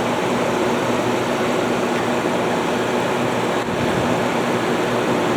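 Haier ESA410J-RGB 10,000 BTU window air conditioner running on cooling just after start-up: the fan's steady rush with the Rechi compressor's even hum beneath it, starting up without trouble.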